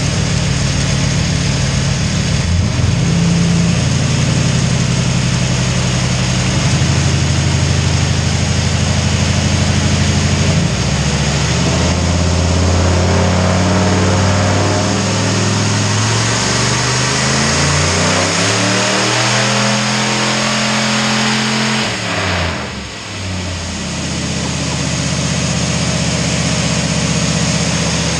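Turbocharged 6-litre V8 of a 2500 pickup running on a chassis dyno. It runs steadily at first, then the revs climb steadily through a pull for about ten seconds, drop off sharply when it lifts near the end, and settle back to a steady run.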